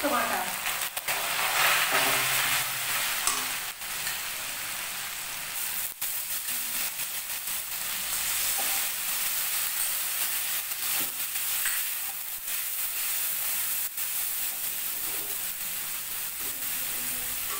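Chopped onions and a spoonful of paste frying in hot mustard oil in a steel kadai, sizzling steadily. A metal spatula stirs and scrapes the pan, with a sharp tap now and then.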